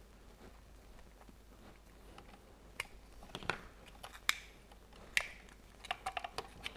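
Small knife prying a circuit board out of a plastic radio-transmitter module case, giving faint scattered clicks and light scrapes as the board is levered free. The clicks begin about three seconds in and come quicker near the end.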